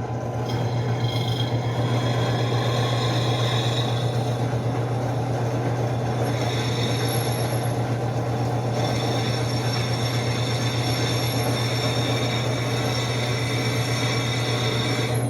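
Benchtop drill press running steadily while a small 3 mm bit drills into 6 mm thick steel angle, the motor's hum joined about half a second in by a high-pitched squeal of the bit cutting the metal.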